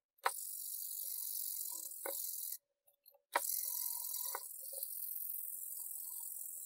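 Wet abrasive scrubbing back and forth on the rusty bottom of an antique clothes iron, a steady gritty hiss that is wet-sanding the rust off. It comes in two stretches with a short silent break, with a few sharp knocks as the iron is handled.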